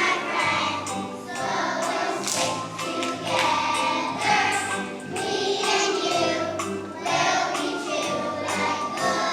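A choir of kindergarten children singing a song with instrumental accompaniment.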